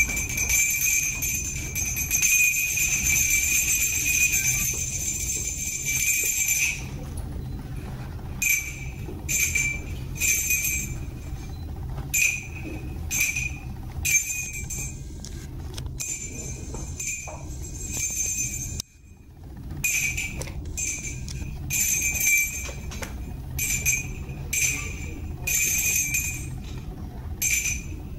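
Small jingle bells shaken with a dancer's movements: a steady jingling for about the first seven seconds, then in short shakes every second or so, with a brief pause about two-thirds of the way through.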